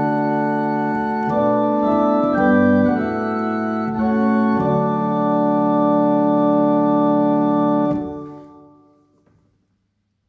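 Organ playing the closing chords of a hymn, ending on a long held chord that is released about eight seconds in and dies away over about a second and a half.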